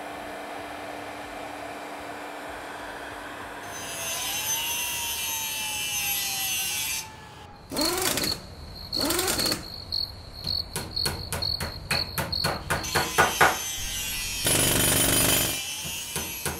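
Heat gun blowing steadily with a low motor hum, shrinking heat-shrink tubing over a wiring connector. After about four seconds comes a string of animated sound effects: a high hiss with a gliding tone, two quick sweeps, a run of sharp ticks that speed up, and a short burst of noise near the end.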